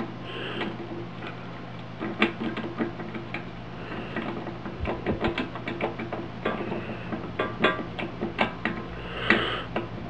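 Southord 7-pin tubular lock pick being worked in a safe's tubular lock: a run of small, irregular metal clicks and ticks as the pick is pressed in and twisted under tension to set the pins. A steady low hum runs underneath.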